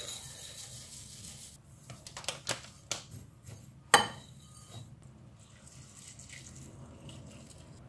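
Rolled oats poured from a plastic container into a ceramic bowl with a dry rustling hiss, followed by a few light clicks and one sharp clink of kitchenware against the bowl about four seconds in.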